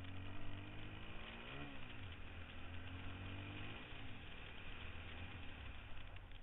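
Dirt bike's single-cylinder engine pulling up through the gears. Its note climbs and then drops sharply at a gear change, twice, about a second and a half and about four seconds in, and then runs on more steadily.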